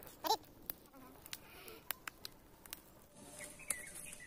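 Small fire of dry leaves and twigs crackling, with scattered sharp snaps. A short chirping call comes about a third of a second in, and a high insect hiss rises in the last second or so.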